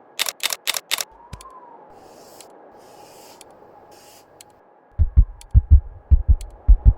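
A quick run of five sharp clicks, then faint hiss. From about five seconds in, a low double-thump heartbeat rhythm begins, about two beats a second.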